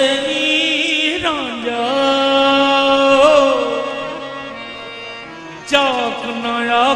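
Qawwali music: a male voice holding long wordless notes that glide and waver in pitch, over harmonium accompaniment. The sound grows softer around four to five seconds in, then a sharp knock comes and the held notes resume.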